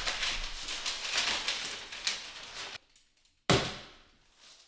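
A paper template rustling as it is handled and pressed flat against the wall. After a sudden silence, a stapler fires once, a sharp snap tacking the template up, which fades over about a second.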